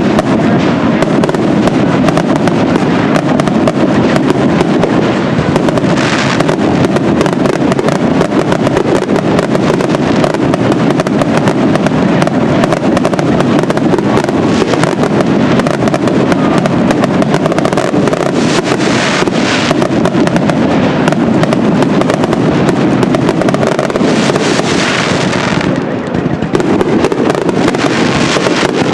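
Fireworks finale barrage: a dense, unbroken rapid-fire stream of bangs and crackles with no letup, swelling into brighter crackling flurries a few times.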